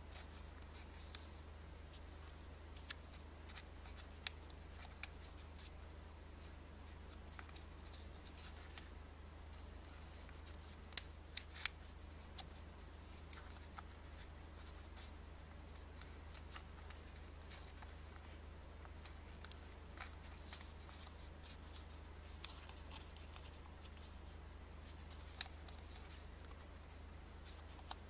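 A paper banknote crinkling and creasing under the fingers as it is folded into origami, in scattered crisp rustles and clicks. A few louder crackles come in a quick cluster about eleven seconds in. A steady low hum sits underneath.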